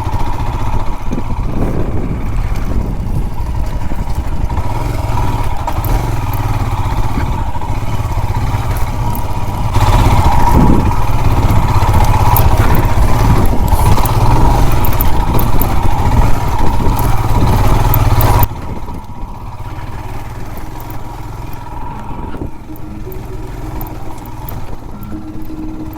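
Royal Enfield Himalayan's single-cylinder engine running under load as the motorcycle climbs an off-road slope, getting louder about ten seconds in, then dropping suddenly to a lower, steadier run a few seconds before the end.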